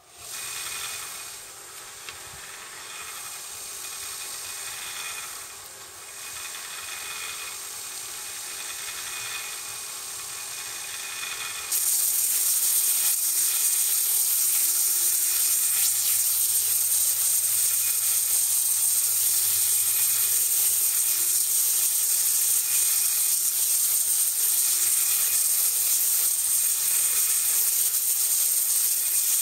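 Electric bench sander switched on and running with a steady whine. About twelve seconds in, a wooden pole shaft is ground against the abrasive, and a loud, even hiss of sanding wood takes over.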